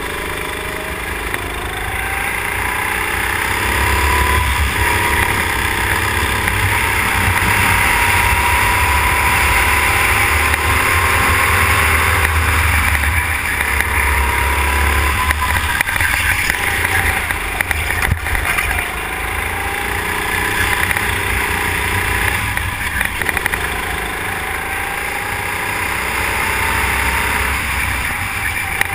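Go-kart engine running at racing speed, heard from on board the kart, its pitch rising under acceleration and falling away into the corners several times, over a steady low rumble.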